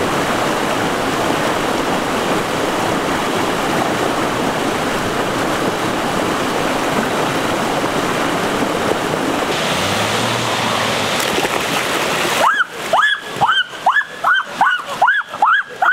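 Rushing stream pouring over boulders, a steady wash of water. About three-quarters of the way through it gives way to splashing in a pool and a run of short rising-and-falling cries from a person, two or three a second.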